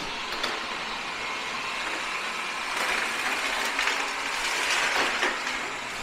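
Wyze robot vacuum running with a steady whir of suction motor and brushes. From about three seconds in it gets louder, with scattered ticks and rattles as it runs over and sucks up a line of Cheerios.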